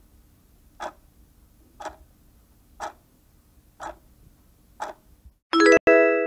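Countdown-timer sound effect: a clock-like tick once a second, then a loud, bright chime of several tones about five and a half seconds in, as time runs out and the correct answer is shown.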